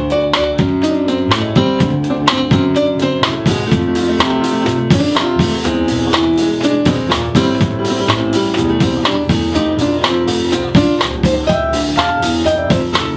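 A blues band playing an instrumental passage: guitar over a steady drum-kit beat.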